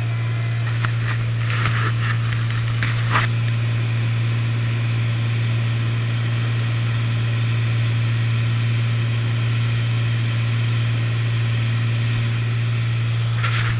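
Single-engine propeller airplane's engine and propeller droning steadily in cruise, heard inside the cabin as a loud, even, low hum.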